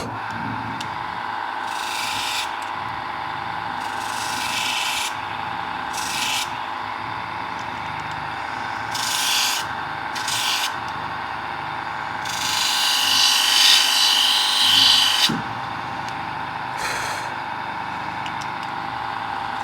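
Small rotary tool running steadily with a diamond burr, grinding the serrations of a Leatherman Wave's serrated blade in about seven short passes, the longest near the middle.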